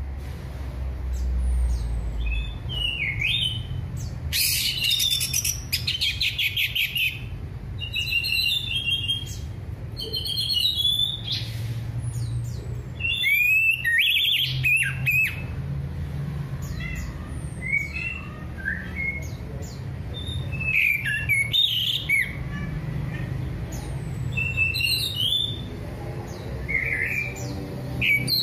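Orange-headed thrush singing: a varied run of clear whistled phrases and fast trills, one phrase after another with short pauses, over a steady low hum.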